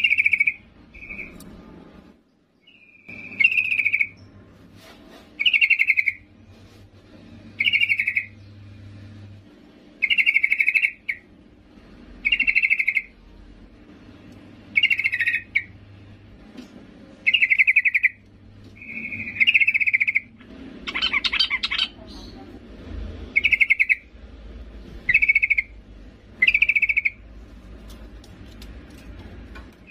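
Female yellow-vented bulbul calling to males: short, clear calls repeated about every two seconds.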